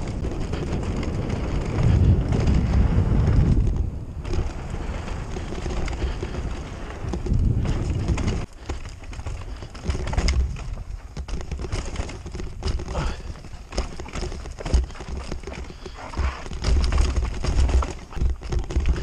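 Haibike AllMtn 3 e-mountain bike riding fast down a dirt forest trail: wind rush and tyre roar on the dirt for the first few seconds, then an irregular run of knocks, rattles and thuds as the tyres, suspension and frame take rocks and roots.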